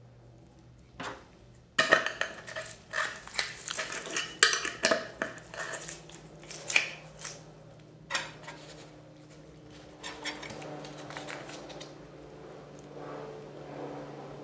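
Candy sprinkles rattling against a glass jar as it is shaken: a dense run of sharp clatters starting about two seconds in, then scattered, fainter rattling.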